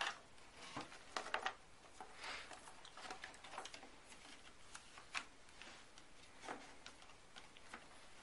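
Hands handling a model plane: scattered light clicks and rustles as wiring is tucked into the fuselage and the wing is pressed in place.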